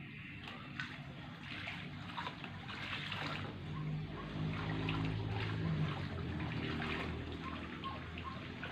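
Water trickling and splashing in a shallow azolla pond as a barefoot person wades through it and scoops azolla. A low hum swells underneath for a few seconds in the middle.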